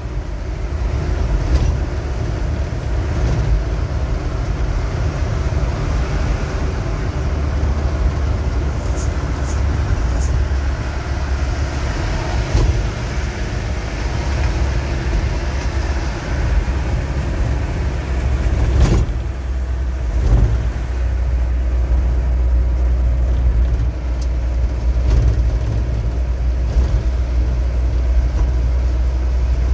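Steady low drone of a truck's engine and road noise heard inside the cab while driving, with one sharp knock about two-thirds of the way through.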